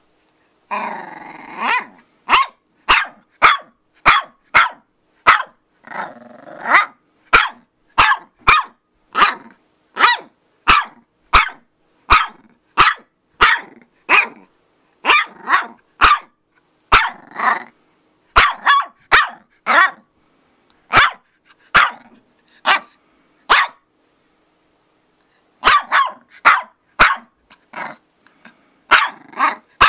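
Puppy barking over and over in short, sharp yaps, about two a second, with a longer growling sound near the start and another about six seconds in. The barking breaks off for about a second and a half near the end, then goes on.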